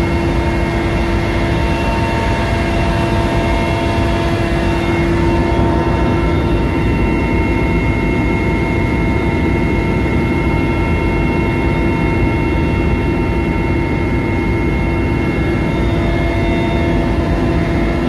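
Helicopter in flight heard from inside the cabin: loud, steady engine and rotor noise with a constant whine over it.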